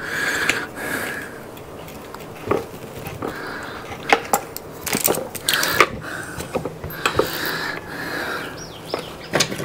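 Light clatter of small screws and plastic trimmer parts being rummaged through and handled, with scattered sharp clicks and taps.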